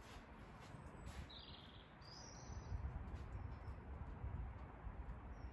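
Faint outdoor background: a low rumble with a few short, high bird chirps, mostly about a second or two in.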